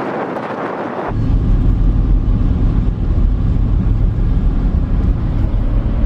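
Wind rushing over the microphone, which cuts off suddenly about a second in, leaving the steady low rumble of a car driving.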